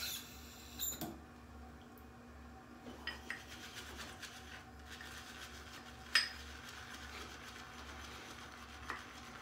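A few light clinks and knocks of shaving gear being handled, the sharpest about six seconds in, over a low steady room hum.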